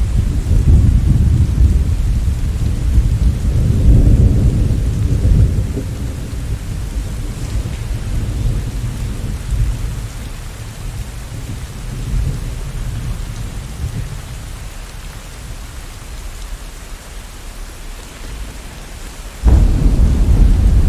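Steady rain with thunder: a long low rumble of thunder that slowly fades away, then a sudden loud thunderclap about a second and a half before the end.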